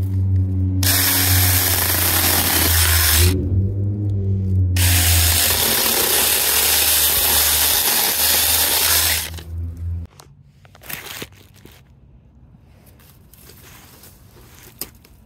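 Mini cordless electric chainsaw (Saker 4-inch) running with a steady motor hum and cutting through bamboo stalks twice, the chain noise loud for a few seconds each time. The motor stops about ten seconds in, leaving only faint clicks and rustling.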